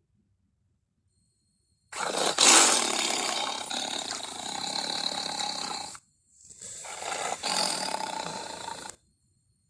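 Two Ceratosaurus roar sound effects from a made-up dinosaur voice: the first starts about two seconds in, is loudest at its start and runs about four seconds; after a brief gap a second, shorter roar follows. Each cuts off abruptly.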